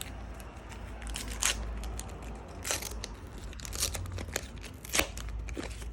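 Foil wrapper of a Match Attax trading card pack being torn open and crinkled by hand, with several sharp rips, the loudest about a second and a half in and again near the end.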